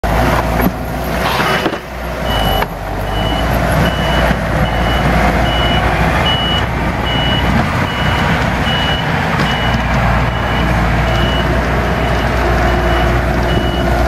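Diesel engines of two Takeuchi compact track loaders running hard while grading dirt. A backup alarm beeps steadily, about one beep every 0.8 s, starting about a second and a half in and running until near the end.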